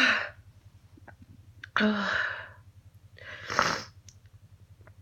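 A woman sneezing repeatedly in a hay fever sneezing fit. The tail of one sneeze comes at the start, then a sudden sneeze about two seconds in, then a breathier one that swells and breaks about three and a half seconds in.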